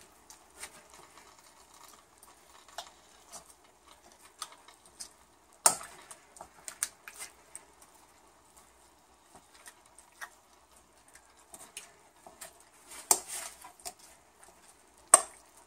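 A metal spoon stirring and mashing raw sausage meat in a bowl: soft wet scraping and small ticks, with sharp clinks of the spoon against the bowl about six, thirteen and fifteen seconds in.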